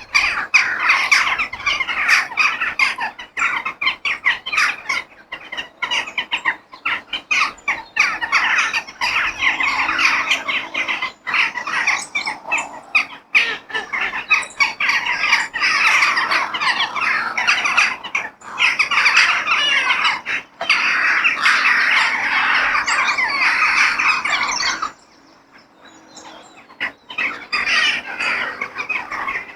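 A flock of crows cawing and squawking all at once in a dense, overlapping din. The din drops away for a couple of seconds near the end, then picks up again.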